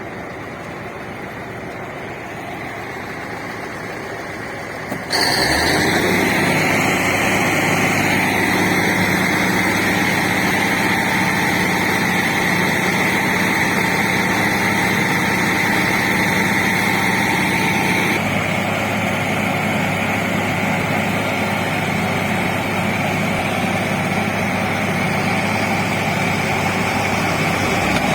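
Heavy diesel engine running steadily. It gets abruptly louder about five seconds in.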